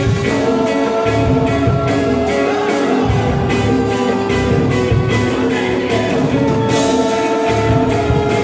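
Live band music: a dance orchestra playing, with held melody notes over a steady drum beat.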